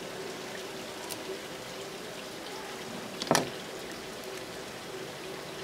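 Water splashing and pattering steadily over a faint steady hum, with one sharp knock about three seconds in.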